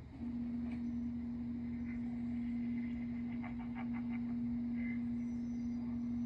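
A steady low hum on one unwavering pitch, beginning suddenly, with a quick run of faint clicks about three and a half seconds in.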